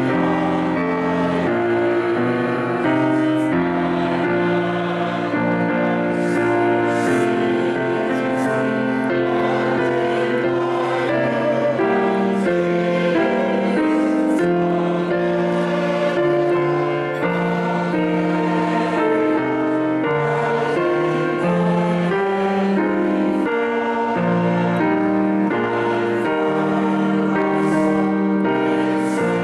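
Congregation singing a hymn together with instrumental accompaniment, in slow, held chords that change about every second.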